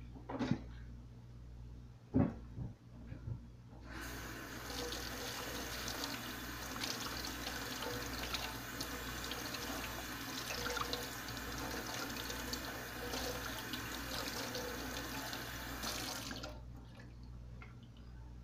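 Kitchen faucet running into a stainless steel sink. The water comes on about four seconds in, runs steadily, and shuts off shortly before the end. A few knocks at the sink come before it.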